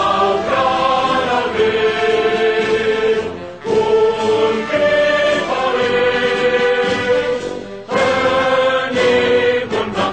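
Choral music: a choir singing long held notes in phrases, with short breaks about every four seconds.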